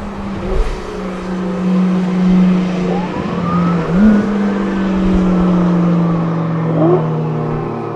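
Hansen GTR race car's 6.0-litre W12 engine running at a steady note, with quick rising revs about four seconds in and again near seven seconds. Wind buffets the microphone.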